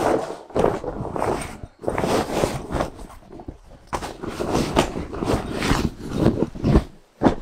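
A large fabric duffel bag rustling and swishing in irregular bursts as it is folded and pushed down into a hard-shell suitcase.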